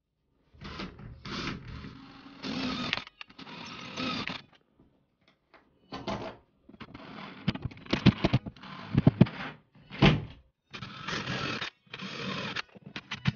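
Hand-tool work on drywall in short bursts of scraping and rubbing, with sharp clicks and knocks, the loudest a little past the middle. Near the end a cordless drill bores into the drywall with a steady grinding noise.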